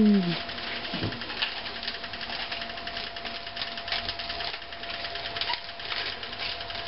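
Hand-twisted pepper mill grinding pepper over a frying pan: a fast, irregular run of small ratcheting clicks that grows denser near the end. The tail of a loud falling, howl-like voice fades out at the very start.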